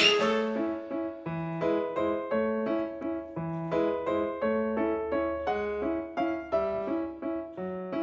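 Background music played on piano or keyboard: short repeated notes over a bass line that steps about once a second.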